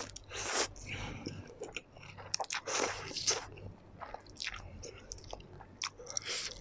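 Close-miked slurping of saucy black instant noodles drawn in with chopsticks, alternating with wet chewing in a run of short, quick slurps and bites.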